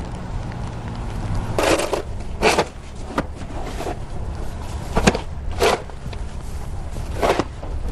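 Snow shovels scraping along a snow-covered sidewalk, about seven short scrapes at uneven intervals as snow is pushed and lifted. A low steady rumble comes before them at the start.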